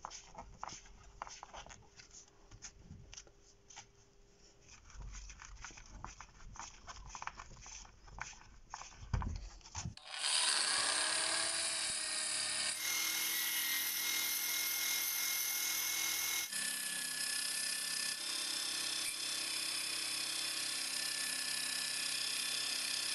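Clicks and light scraping as a driver works the screws on an antique hand saw's handle. About ten seconds in, a power tool's sanding disc starts running steadily against the rusty steel blade, stripping the rust with a loud abrasive hiss over a motor whine. The whine shifts abruptly twice.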